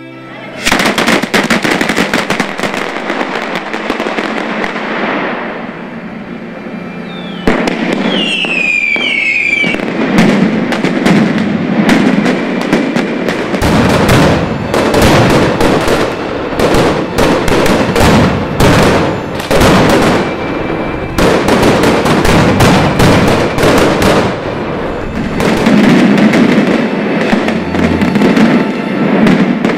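Mascletà: gunpowder firecrackers going off in a dense, rapid crackle, with a few shrill whistles falling in pitch about eight seconds in. From about fourteen seconds the bangs get heavier, with deeper booms mixed into the barrage.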